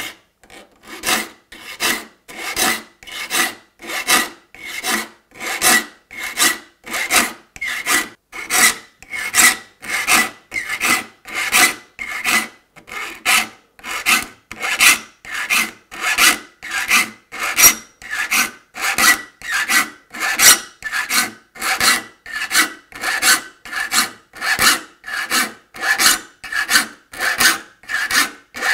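A saw file being pushed across the teeth of a handsaw clamped in a saw vise, sharpening it for a rip cut: a long run of even rasping strokes, a little over one a second, each with a slight ring from the steel saw plate.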